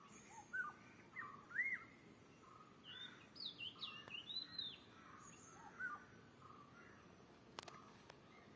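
Birds chirping and whistling: short notes that slide up and down in pitch, with a busier run of calls around the middle, over a faint steady hiss. Two sharp clicks near the end.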